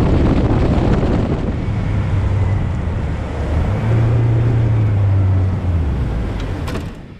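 Boat's outboard motor running under way, a low steady hum under heavy wind noise on the microphone; the hum rises slightly in pitch about four seconds in and drops back, and the noise fades near the end.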